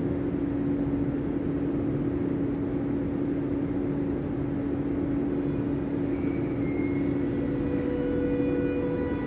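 Steady low rumble and hum of an underground railway station, with two close droning tones. Near the end a higher whine of several steady tones sets in.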